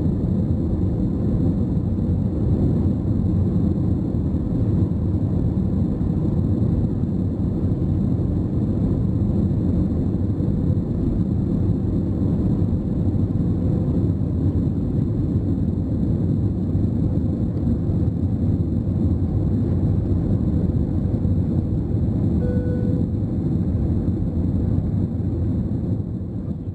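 Inside the cabin of an Airbus A320 on its takeoff roll and lift-off: a steady, loud, deep rumble of the engines at takeoff power, dropping away near the end.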